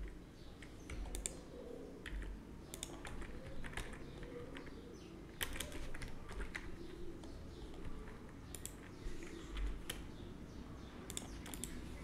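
Computer keyboard keys pressed one at a time: scattered short clicks at irregular intervals.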